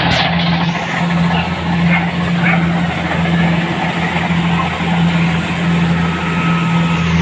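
Engine of a rice-harvesting machine running steadily, a constant low hum under a loud even wash of mechanical noise.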